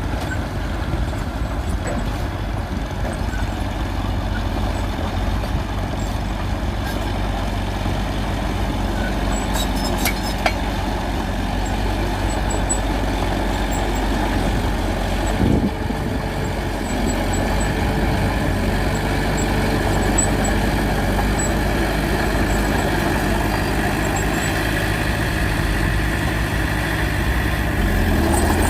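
Heavy vehicle engine running steadily with a low, even drone, with a brief knock about halfway through.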